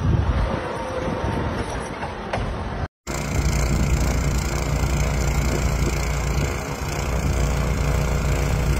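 Rough outdoor noise, broken by a short dropout just before three seconds in, then a steady low rumble with a faint hum under a wash of noise.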